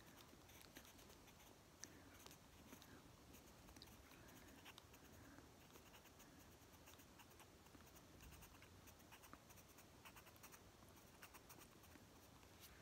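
Faint pencil scratching on sketchbook paper in many short strokes.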